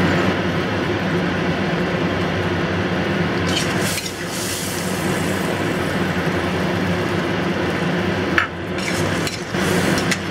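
Chicken stock simmering in a stir-fry pan with chayote squash, tofu and mushrooms, bubbling steadily over a low hum, while cornstarch slurry is poured in to thicken the sauce. A few short clinks of a spoon against the bowl or pan break in.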